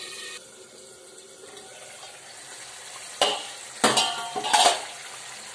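Curry gravy bubbling and sizzling steadily in a pan with fried pointed gourds, stirred with a metal spoon that clatters against the pan three times in the second half.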